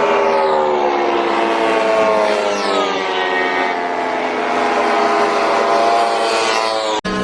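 Motorcycle engine running hard on a race circuit, its pitch gliding up and down with the revs. About seven seconds in the sound cuts out abruptly and a different engine takes over.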